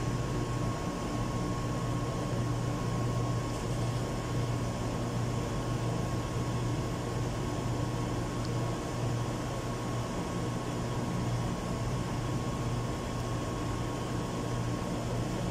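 Steady low machinery hum with a thin steady high tone above it, unchanging throughout.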